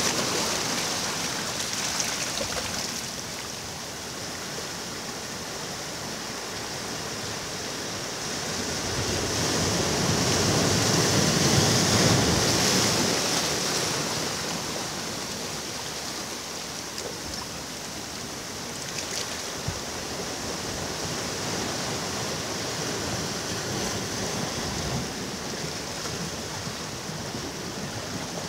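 Sea waves washing onto a beach: a steady rush of surf, with one larger wave swelling up and breaking near the middle and then receding.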